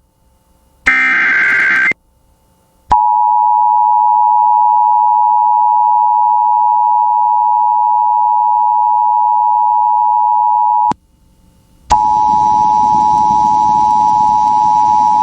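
Emergency Alert System broadcast tones: a short screeching SAME digital header burst about a second in, then the two-tone EAS attention signal held steady for about eight seconds. After a one-second gap comes a single steady tone over static hiss for about three and a half seconds, just before the warning message.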